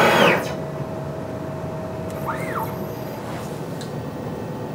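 Onefinity CNC with a J-Tech laser module running: a steady hum from the laser's fan and the stepper motors as the gantry moves the laser head, with a short rise and fall in pitch near the middle. A brief hiss sounds right at the start.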